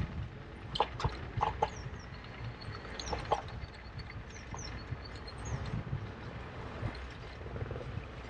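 Bicycle riding along a city street: a steady low rumble of road and wind, with a cluster of sharp knocks and rattles about a second in, two more around three seconds, and faint short high chirps throughout.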